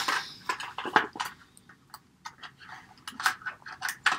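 Plastic blister and cardboard backing of a carded Hot Wheels car being cut and pried open by hand: an irregular run of sharp clicks and crinkles, busiest in the first second and again near the end.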